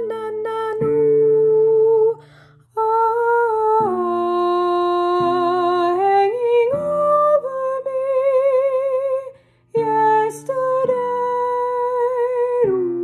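A woman singing an alto line in long held notes with vibrato, over a steady low instrumental accompaniment; the singing breaks off briefly twice, about two seconds in and again a little past halfway.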